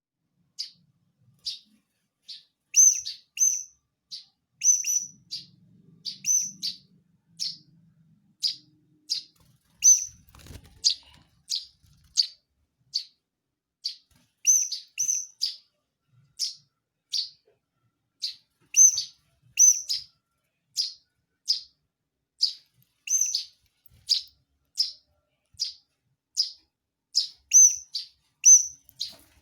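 Eurasian tree sparrow chirping over and over: short, high single chirps, about one or two a second.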